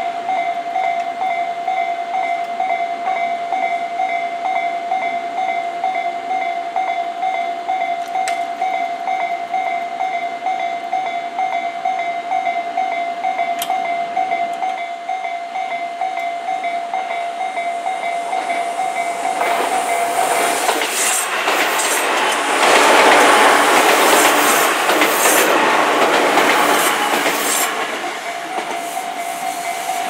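Japanese railway crossing alarm ringing its repeating electronic bell. About 19 seconds in, an electric train runs over the crossing, its wheels clattering on the rail joints. The train drowns out the bell, which is heard again near the end.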